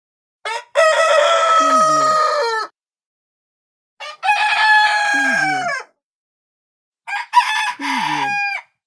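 Rooster crowing cock-a-doodle-doo three times, each crow about two seconds long and ending with a falling note, with short gaps between.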